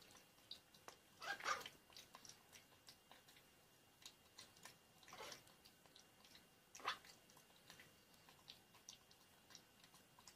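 Faint, scattered clicks and wet smacks of a macaque monkey eating, licking and mouthing a spoon, with a few slightly louder smacks about a second and a half in, around five seconds and near seven seconds.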